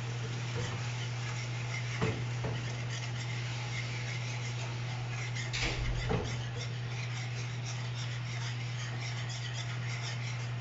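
Coconut cream and sugar glaze bubbling in a non-stick frying pan over a gas flame, reducing, while a wire whisk stirs and scrapes through it. A few clinks of the whisk against the pan about two seconds in and around six seconds, over a steady low hum.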